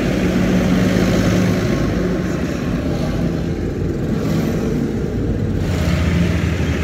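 Diesel tractor engines running as several tractors drive past in a column, a steady low engine hum with tyre and road noise. The engine note changes abruptly a couple of times in the second half.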